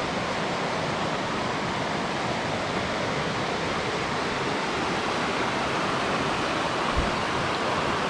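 Steady rush of river rapids, white water pouring over flat rocks.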